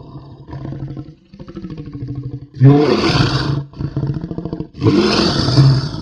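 Dinosaur creature sound effects: low, pulsing growls, then two loud roars of about a second each, one near the middle and one near the end.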